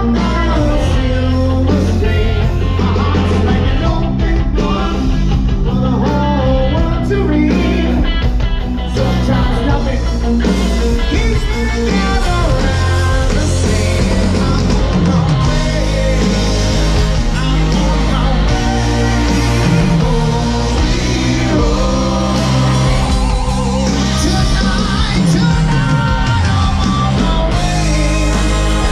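Live rock band playing a song: electric guitars, keyboards and drums with a singer.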